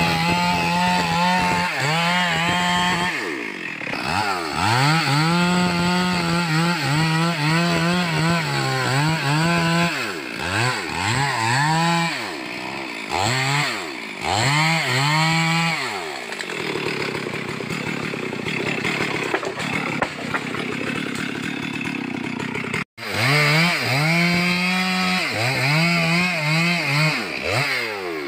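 Two-stroke chainsaw cutting timber: the engine is throttled up again and again, held at full speed for a second or two, then dropped back, over and over. Partway through there is a steadier stretch without the swings, and the sound cuts out for an instant before the revving resumes.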